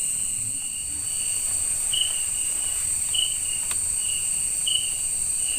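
Night insects in forest: a steady high-pitched drone with a lower, shorter chirp repeating about twice a second over it.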